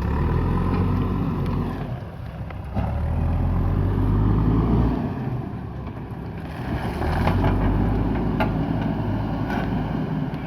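Diesel engine of a JCB backhoe loader running under load, swelling and easing several times as it works, with a few light knocks.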